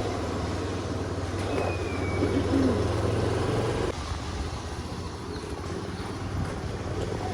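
Road traffic noise with a vehicle engine's steady low hum, which drops away about four seconds in. A single short bird call sounds about a second and a half in.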